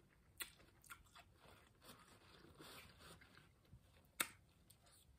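Faint close-up eating sounds: fried noodles being chewed, with a few soft clicks and one sharper click about four seconds in.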